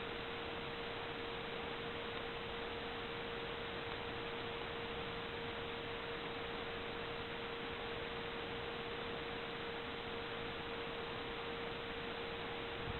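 Steady hiss with a constant, even hum-like tone, unchanging throughout, with no distinct events.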